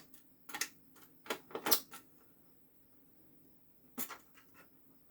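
Sharp clicks and taps of small screws, a screwdriver and the plastic housing of an all-in-one PC being handled during disassembly. A quick cluster of clicks comes between about half a second and two seconds in, and one more click about four seconds in.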